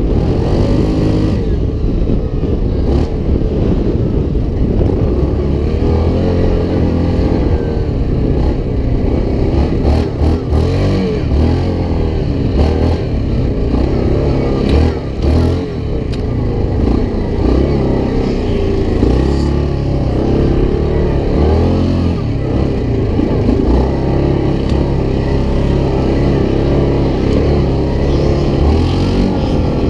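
Off-road vehicle engine running loud and revving up and down continuously.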